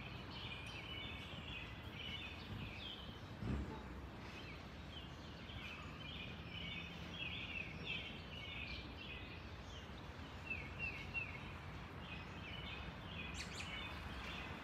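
Birds chirping in quick, repeated short notes over a steady low background rumble, with a single thump about three and a half seconds in.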